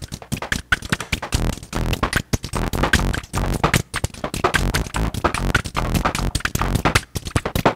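Make Noise Strega synthesizer played from a keyboard, giving very simple notes with square, abrupt on-off shapes. Behind them runs a rapid, uneven clicking percussion pattern from the clock noise in its time circuits.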